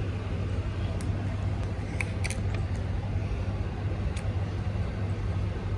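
Steady low room hum, with a few light clinks of metal spoons against the dish.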